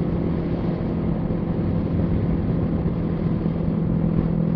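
Kawasaki Z650's parallel-twin engine with a Yoshimura Alpha exhaust, cruising at a steady, unchanging pitch, under wind and road noise picked up by a helmet-mounted microphone.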